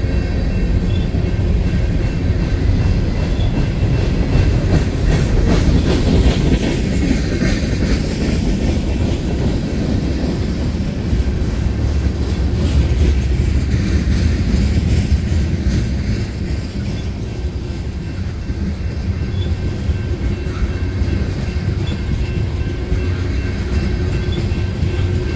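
Freight train of covered hoppers and tank cars rolling past close by: a steady, loud, heavy rumble, with wheels clacking over the rail joints.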